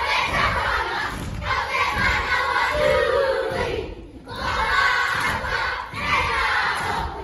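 Large group of children performing a haka: loud shouted chanting in unison, in phrases, with a short break about four seconds in.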